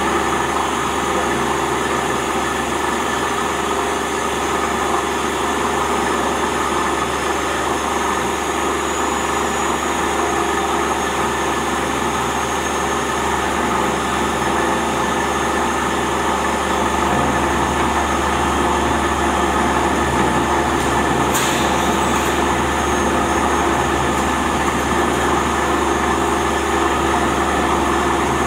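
Waste plastic film grinding and pelleting machine (film agglomerator) running steadily while its rotor mills clean waste film fed in from the top, a steady mechanical hum with a strong low tone. It gets slightly louder a little past halfway, and a single sharp click sounds about two-thirds of the way in.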